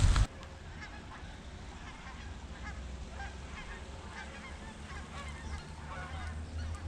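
Birds calling: a run of many short, faint calls over a steady low rumble.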